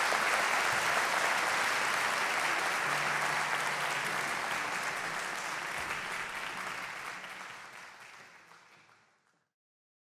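Concert audience applauding at the end of a song, the applause fading out to silence about nine seconds in.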